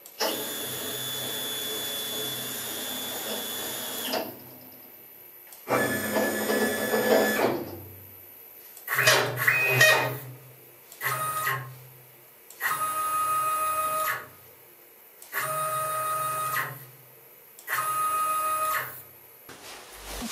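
Stepper motors of a homemade CNC gantry router driving the gantry in about seven separate moves, each a steady whine that starts and stops abruptly, with short pauses between. The first move lasts about four seconds and the later ones one to two seconds each.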